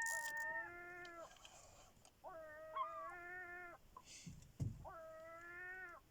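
Gull giving long, drawn-out mewing calls, three in a row, each held steady for about a second and a half and dropping a little at the end. A dull knock comes between the last two calls.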